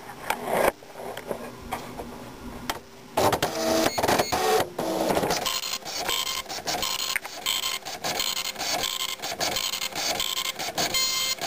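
Citizen GSX-190 9-pin dot matrix printer starting up, with clicks and a louder mechanical stretch about three seconds in. From about five seconds in it is printing, the print head's passes repeating evenly across the page.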